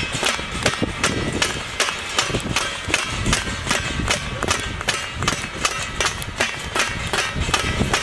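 Rapid, continuous banging on metal plates with clapping, about four or five strikes a second, with a faint metallic ring under the strikes.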